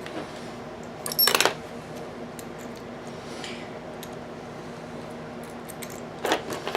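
Small metal Allen wrenches clinking against each other, one short clatter about a second in and a few more clinks near the end, over a faint steady hum.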